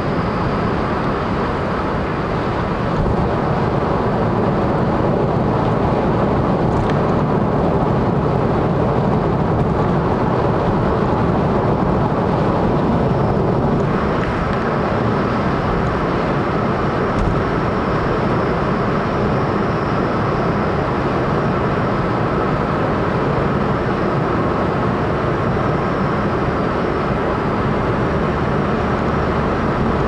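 Steady road noise of a car driving at expressway speed: tyres on asphalt and the engine running, with no let-up. The higher hiss of the tyre noise changes a little about halfway through.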